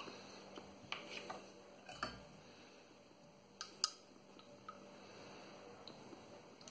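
Light clicks and taps from a screw cap being twisted off a glass hot sauce bottle and set down on the table, with the sharpest tap a little under four seconds in.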